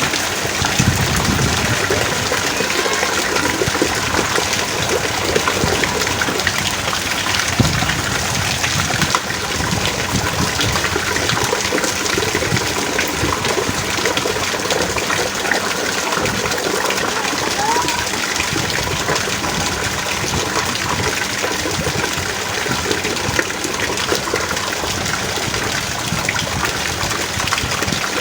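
Heavy rain pouring down steadily, a dense, even hiss of water with gushing runoff.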